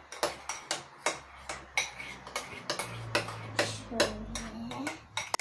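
A utensil clicking and scraping against a bowl in quick irregular strokes while slime gel is stirred into shaving foam.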